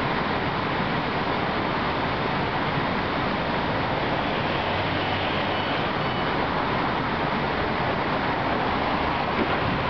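Steady, even hiss of a Helsinki Metro train standing at the platform with its onboard equipment running, with a small knock near the end as the doors close.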